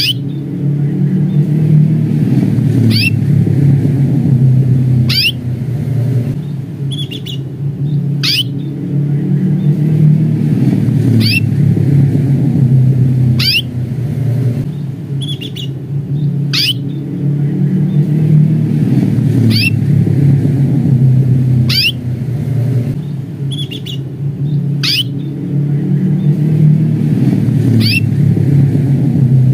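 Domestic canary giving short 'cuit' call notes, each a quick chirp falling in pitch, repeated every two to three seconds. A steady low rumble runs underneath and is louder than the chirps.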